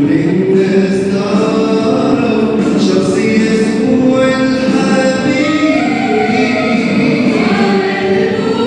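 Mixed choir of men and women singing a Christian hymn through microphones, holding long notes that shift in pitch.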